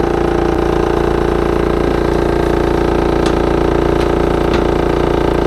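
Samsung double-door refrigerator's condenser fan running with a loud, steady, fluttering drone, more like a generator than a fridge. Its fan blade is bent and has one blade broken, so it is unbalanced and vibrating hard.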